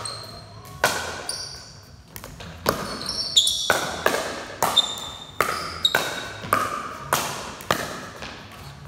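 A fast pickleball volley rally: paddles hitting the hollow plastic ball with sharp knocks about every half second, each echoing in a large hall. Short high squeaks from sneakers on the concrete court come between some of the hits.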